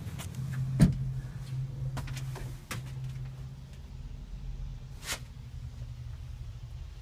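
A steady low hum with several sharp knocks and clicks inside the cab of a John Deere 4630 self-propelled sprayer, the loudest knock about a second in; the hum fades in the second half.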